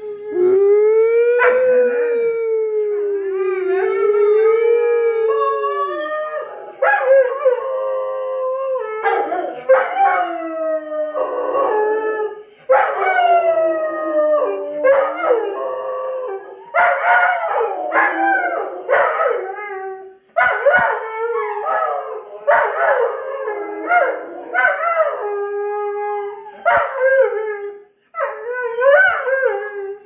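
Two Doberman pinschers howling. One long wavering howl comes first, then from about six seconds in both dogs howl over each other in rising and falling howls with short breaks.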